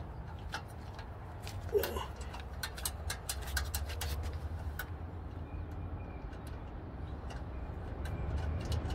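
Irregular small metallic clicks from a hand tool turning the clamping bolt of an exhaust whistle fitted inside a car's tailpipe, over a steady low rumble, with one short louder sound about two seconds in.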